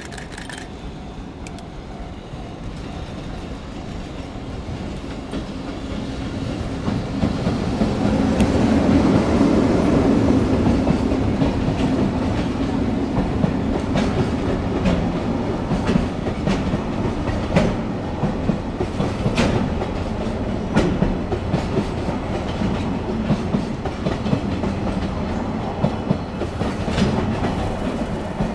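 Freight train hauled by an EF65 electric locomotive passing, then its container wagons rolling by. The rumble builds over the first several seconds to its loudest as the locomotive passes, then stays steady, with the clickety-clack of wheels over rail joints throughout.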